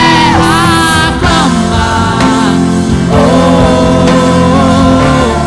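Live worship band playing, with a woman singing the melody into a microphone over keyboard and guitars; from about three seconds in she holds one long note with vibrato.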